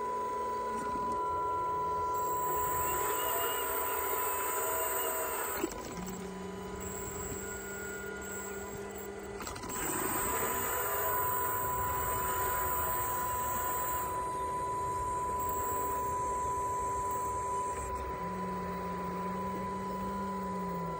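A 1/8-scale RC hydraulic excavator running, its electric-driven hydraulic pump giving a steady machine whine. Higher whines and a lower tone switch on and off as the arm and bucket are worked, with two stretches of rougher noise while it digs.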